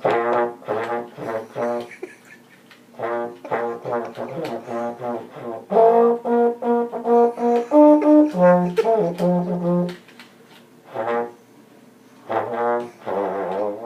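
Trombone played with no hands: runs of short repeated notes on a few different pitches, broken by brief pauses.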